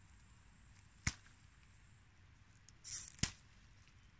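Two short sharp snaps as green pea pods are pulled off the vine, about a second in and again after about three seconds, with a brief rustle of the leaves just before the second snap.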